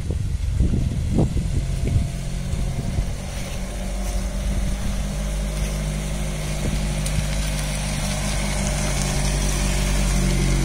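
1951 Moskvitch 400-420A's small four-cylinder side-valve engine running at low revs as the car drives slowly up, getting a little louder toward the end. Uneven rough noise over the engine for the first three seconds or so.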